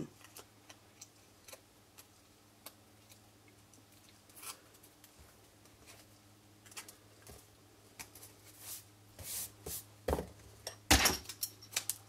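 Faint ticks and light scratching of a paper-piercing tool poking the tiny waste pieces out of a die-cut cardstock leaf, over a faint steady hum. A few louder, sharp clicks come near the end.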